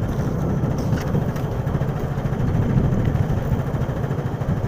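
Steady low rumble of road traffic from the boulevard, with no single event standing out.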